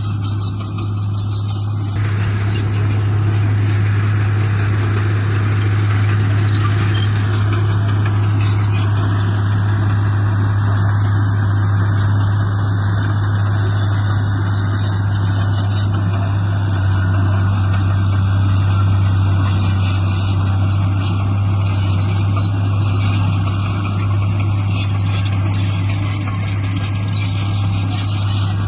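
Heavy construction machinery's diesel engine running steadily with a strong low hum, stepping up in loudness about two seconds in.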